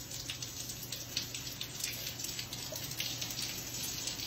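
Water pouring in several thin streams from a sagging ceiling, a steady splashing patter. The ceiling drywall is bulging with water pooled above it from a leak.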